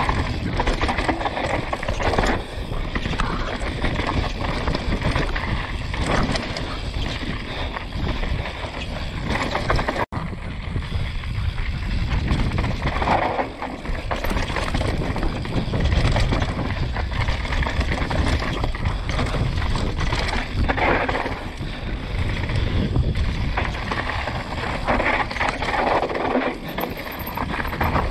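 Wind buffeting an action camera's microphone while a downhill mountain bike's tyres roll over dirt and gravel, the bike rattling over the bumps. The sound cuts out for an instant about ten seconds in.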